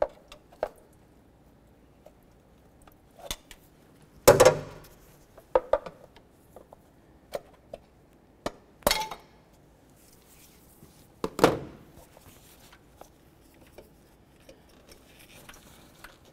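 Scattered clinks and knocks of a metal fuel rail and its fittings being worked and pried loose from the fuel injectors by hand, with three louder clunks spread a few seconds apart.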